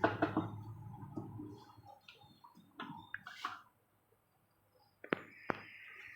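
Scattered light clicks and knocks of handling, a short near-silent pause, then two sharp clicks, after which a steady hiss begins.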